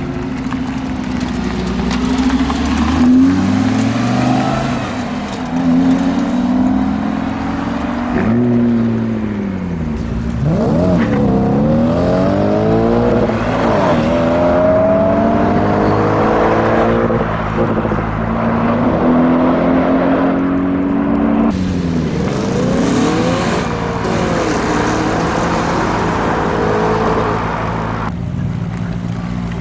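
Sports cars, among them a V10 Lamborghini Gallardo and a twin-turbo B5 Audi RS4, pulling away and accelerating hard one after another. Engine pitch climbs through each gear and drops at every upshift, in one long series of pulls in the middle and another shortly after.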